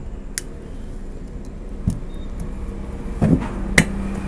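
Sharp metallic clicks and a dull knock from a screwdriver and piston rings against a motorcycle cylinder block as the rings are pressed into the bore, the loudest click near the end. A steady low hum lies underneath.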